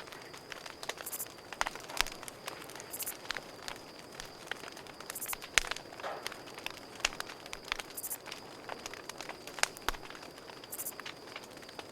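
Campfire crackling, with irregular pops and snaps, a few sharper ones standing out, over crickets: a steady high trill and short high chirps every two to three seconds.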